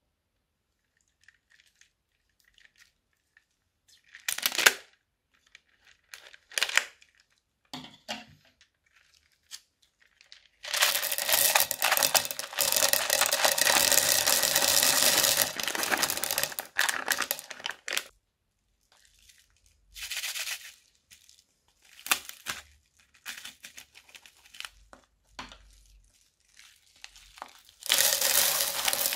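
Clear plastic piping bags crinkling as they are handled and squeezed, with small plastic beads spilling out of them onto slime. It starts with a few short crinkles, then becomes a long dense rustle about ten seconds in. Short crinkles follow, and another long rustle comes near the end.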